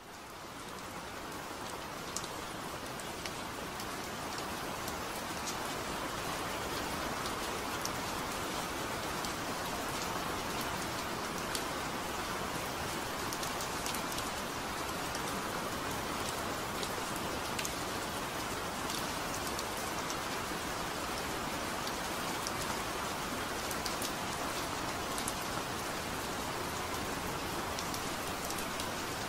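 Steady rain falling, an even hiss with scattered sharper drop ticks, fading in over the first few seconds and then holding level.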